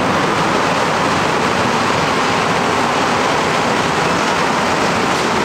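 Inside an MR-63 rubber-tyred metro car running at speed through the tunnel: a steady, loud rush of running noise from the car's tyres and running gear, heard from the cabin.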